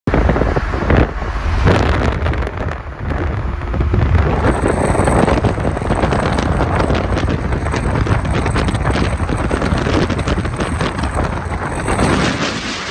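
Wind buffeting the microphone over the steady rush of a vehicle travelling at speed on a motorway.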